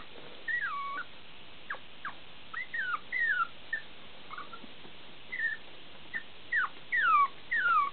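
Two-month-old chihuahua puppy whimpering: about a dozen short, high-pitched whines, most sliding down in pitch, with the longest and loudest near the end.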